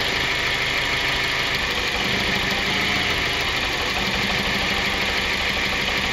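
Four-cylinder car engine idling steadily, with spark arcing from a spark plug wire boot to a grounded 12-volt test light probe held just off it. The spark is jumping through the boot without contact, the sign of a bad, leaking plug wire.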